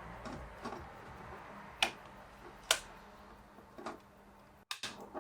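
Sharp plastic clicks and snaps as parts of a SteelSeries Arctis 7 wireless headset are pressed back into place. The two loudest come a little under a second apart near the middle, with a few lighter clicks near the end.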